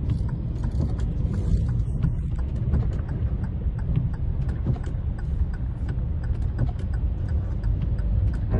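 Steady low rumble of a car driving through a flooded street, heard inside the cabin, with raindrops ticking sharply and irregularly on the car body and glass.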